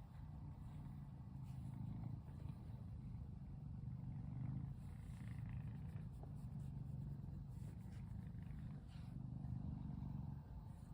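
Domestic cat purring: a low rumble that comes in stretches of a second or two with short dips between.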